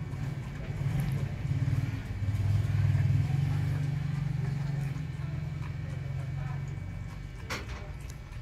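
A motor vehicle's engine running nearby, swelling to its loudest two to three seconds in and then easing off. Beneath it is faint crunching of a dog eating food from a steel bowl, with one sharp click near the end.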